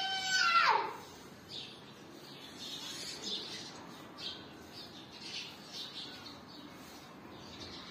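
A rooster crowing once: the call rises, holds, then drops sharply in pitch and ends about a second in. Faint short sounds follow at intervals.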